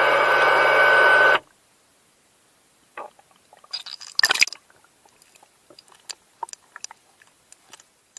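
A steady electric whine with a low hum, heard underwater, cuts off suddenly a little over a second in; this is plausibly the thrusters of a Chasing Dory mini underwater drone. Then water splashes and drips around the camera as it breaks the surface, with a burst of splashing about four seconds in and scattered drips after.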